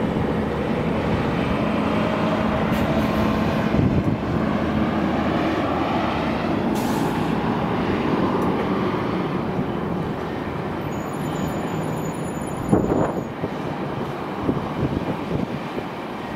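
Jet engines of a four-engined airliner running on the runway: a steady, loud rumble, with a short thump near the end.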